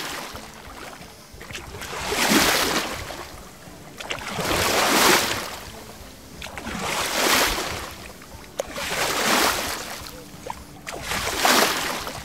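Sea waves surging and washing, each swell rising and falling away about every two seconds.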